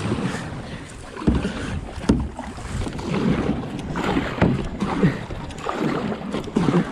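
Water sloshing and splashing around a kayak, with a few sharp knocks, rising and falling unevenly, and wind on the microphone.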